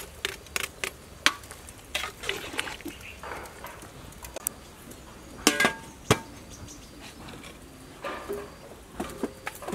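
Cooking sounds at an aluminium pot over a wood fire: scattered sharp clicks and knocks, with one ringing metal clank about five and a half seconds in.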